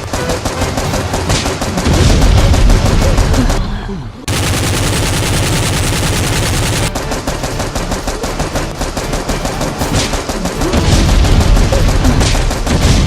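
Rapid machine-gun fire sound effects, long bursts of automatic shots, with a brief break about four seconds in.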